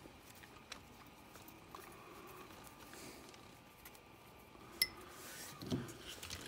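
Faint small clicks and scrapes of a hex driver working a screw on an RC crawler's brass front C-hub, then a sharp clink about five seconds in, followed by handling noise.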